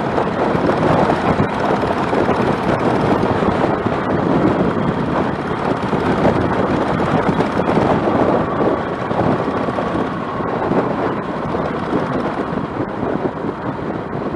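Wind rushing over the microphone while riding a motorcycle at speed, with the bike's engine and road noise running steadily underneath.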